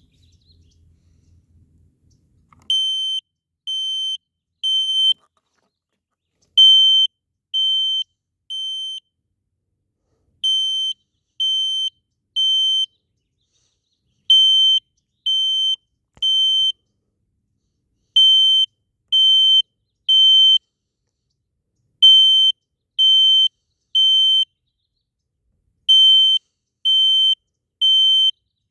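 Kidde smoke detector sounding its alarm under test: loud, high-pitched beeps in groups of three, each group followed by a short pause. This is the standard temporal-three evacuation pattern, and it starts a few seconds in.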